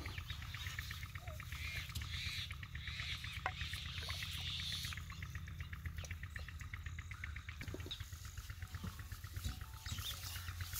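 Outdoor rural ambience of birds and insects: a fast, even chirring with some chirps, over a steady low hum.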